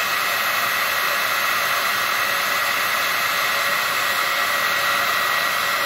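Handheld electric hair dryer running steadily: an even rush of blown air with a thin, steady whine.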